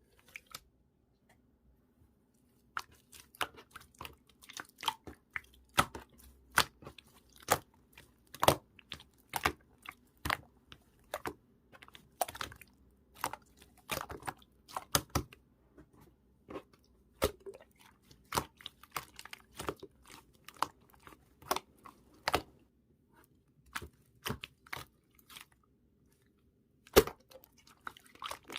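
Slime being squeezed and poked by hand, giving irregular sticky pops and crackles several times a second, starting about three seconds in.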